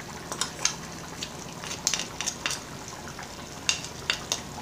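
Metal spoon clicking and scraping against a plastic spice tray and the pot as paprika is scooped and sprinkled in, in irregular light clicks. Under it, the steady bubbling hiss of beef tripe simmering in tomato sauce.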